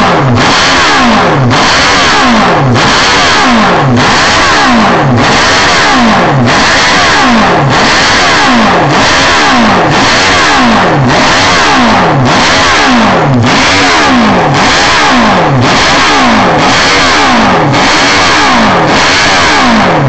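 Classic Benelli racing motorcycle engine being revved over and over, a blip of the throttle about every second, each one rising and then falling away. It is very loud and has a rasping, open exhaust note.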